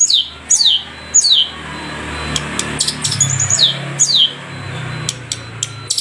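Cendet (long-tailed shrike) singing: four sharp whistled notes that sweep down in pitch, mixed with short clicking notes and brief chatters, over a low background hum.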